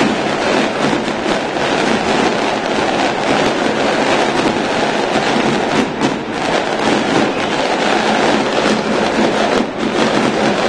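Large football stadium crowd cheering loudly and steadily, with a dense crackle of fireworks going off through it.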